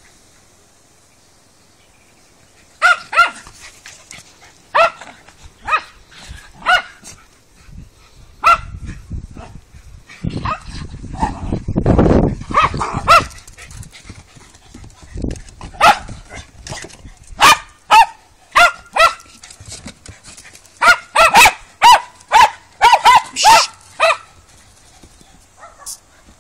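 Dogs barking in short, sharp barks at irregular intervals, starting about three seconds in, with a quick run of barks near the end. A low rushing noise comes in briefly around the middle.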